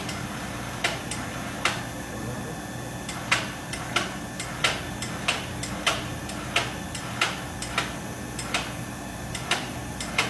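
Sharp metallic clicks, irregular, at about one to two a second, over a steady machinery hum.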